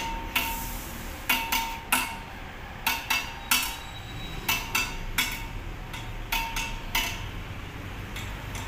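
Irregular sharp metallic knocks and clinks, about fifteen, some with a short ring, as of tools striking metal. A faint low hum runs underneath from about halfway.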